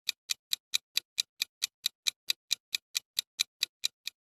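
Countdown-timer clock ticking: even, sharp ticks about four to five a second, stopping shortly before the end.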